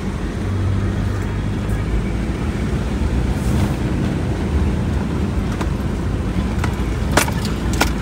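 Car driving along a dirt road, heard from inside the cabin: steady engine and road noise, with a couple of sharp knocks near the end.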